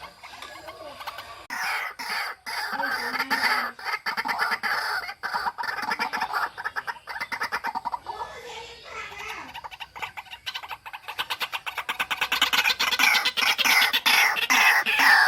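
White-breasted waterhen calling: a long run of rapid, repeated harsh notes that starts about a second and a half in and grows louder near the end.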